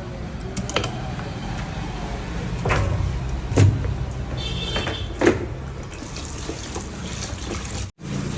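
Chicken being handled and washed during cleaning: wet knocks and splashes over a steady low hum, with a louder knock about three and a half seconds in.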